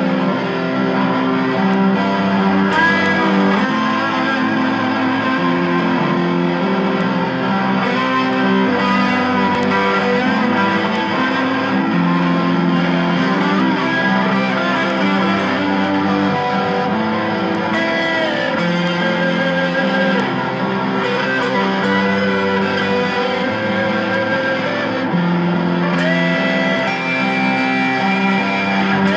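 Electric guitar improvising a minor-key lead over held low notes that change every few seconds, with upward string bends about two-thirds of the way through and again near the end.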